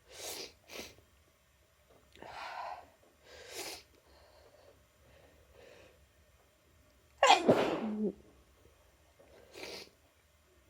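A person with a cold sneezing: a few short, noisy breaths, then one loud sneeze about seven seconds in, followed by another short breath.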